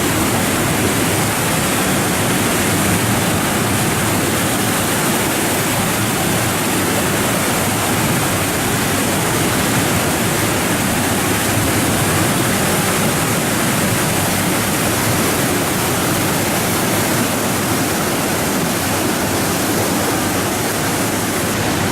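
Large Mekong River waterfall: a great volume of water pouring and crashing over rocks, a loud, steady rush.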